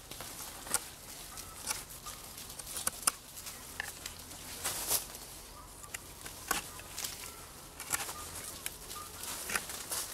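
Knife blade carving a point on the end of a green wooden stick: irregular sharp cutting and shaving strokes, roughly one a second.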